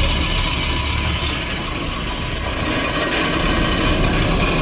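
Anchor rope paying out off the boat's anchor winch drum and through the deck fairlead as the anchor is dropped, a steady mechanical running noise.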